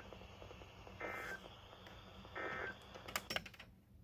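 NOAA Weather Radio SAME end-of-message data bursts from KJY68, received over a weather radio: short buzzy warbling squawks about 1.4 s apart, closing the weekly test. A quick cluster of clicks follows near the end.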